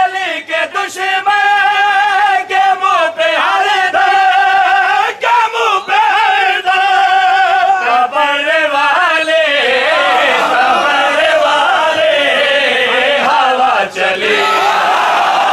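A man chanting a Shia mourning noha in long held notes, with sharp slaps of matam (hands striking chests) breaking through it. From about eight seconds in, many men's voices join in chorus.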